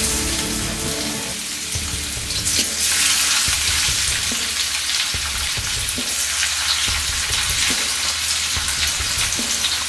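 Chopped onion sizzling in hot sunflower oil in a frying pan, a dense steady hiss with a few low knocks.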